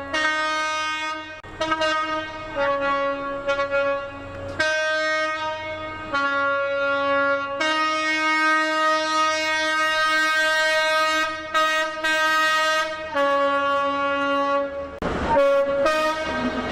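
Train air horn sounding a run of notes, switching back and forth between higher and lower tones. It holds one long note of about five seconds in the middle, with short notes before and after.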